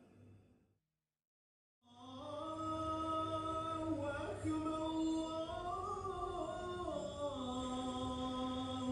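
A man singing a slow, drawn-out melody with no instruments, starting about two seconds in after a moment of silence.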